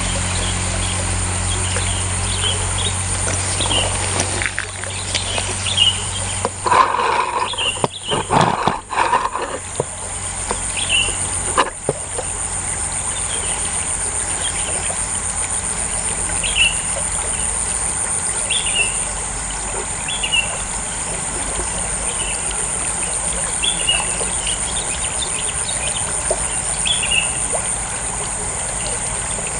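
Outdoor ambience with a steady high insect drone and short bird chirps repeating every second or two. A low engine hum fades out in the first few seconds, and a cluster of bumps and rustles comes about seven to ten seconds in, with a sharp click just after.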